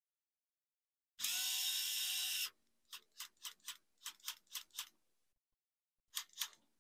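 Small electric screwdriver driving a laptop hinge screw: the motor whirs steadily for about a second, then a string of sharp separate ratchet-like clicks follows as the screw is tightened, with a couple more clicks near the end.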